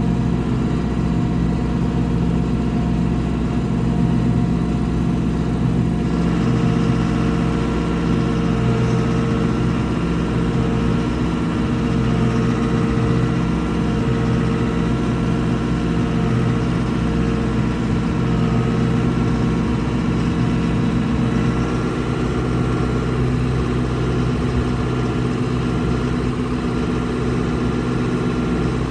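Vehicle engine running steadily, its pitch shifting slightly about six seconds in and again about two-thirds of the way through.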